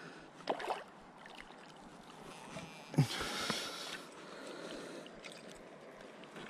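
Faint splashing and sloshing of river water beside a kayak as a hooked bass is brought close on a fly line, with a couple of soft knocks and a brief louder splash about three seconds in.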